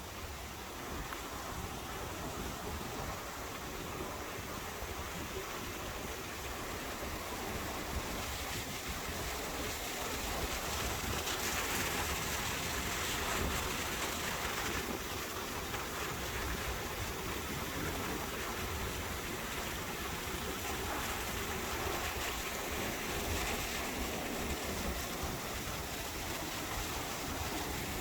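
Steady rush of a fast-flowing mountain stream's water over rocks, growing a little louder and hissier around the middle.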